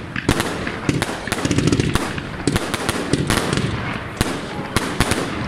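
Fireworks display: aerial shells going off overhead in a rapid, irregular string of bangs and sharp cracks, with crackling in between.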